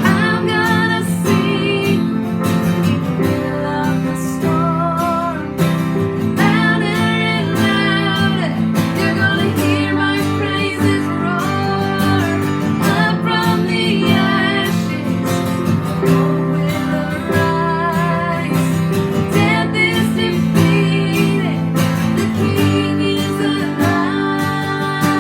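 Worship music: strummed acoustic guitar with a band, and a wavering sung melody over it.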